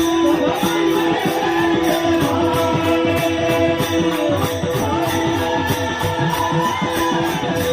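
Marathi devotional bhajan singing: a man's voice over held drone notes, with a jingling hand-percussion beat of about four strokes a second.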